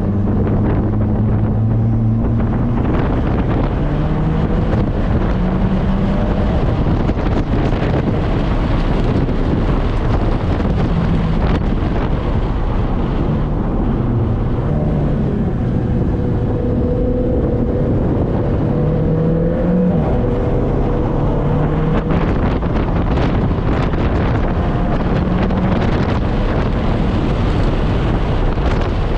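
Car engine heard from inside the cabin while being driven hard on a track, its pitch climbing and then dropping back again and again as it is run up through the gears, over a heavy rush of wind and road noise.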